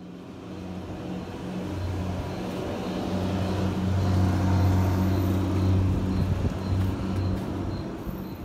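Diesel engine of an intercity coach running close by with a steady low hum, growing louder toward the middle and then easing off. A faint regular ticking sounds about twice a second.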